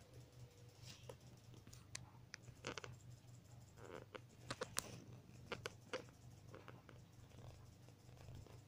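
Near silence: a low steady hum with faint, scattered light taps and rustles.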